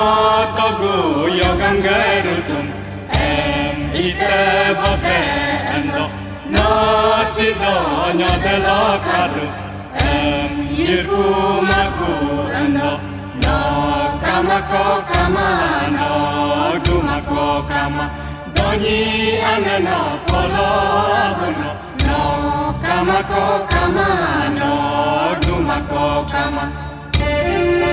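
Galo folk song: a chant-like melody in short phrases, repeating about every two seconds over a steady low accompaniment.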